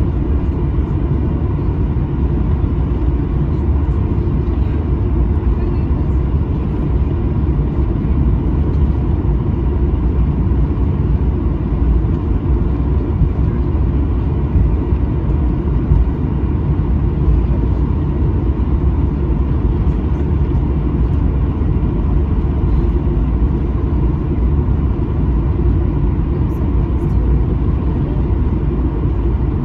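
Steady rumble in the cabin of a Boeing 737-900ER taxiing, its CFM56-7B jet engines running at taxi power, with a faint steady whine above the rumble.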